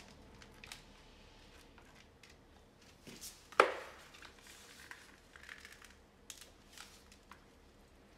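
Potting-mix handling noises: soft scrapes, rustles and small taps of a trowel, gloves and plastic pots, with one sharp knock a little over three and a half seconds in.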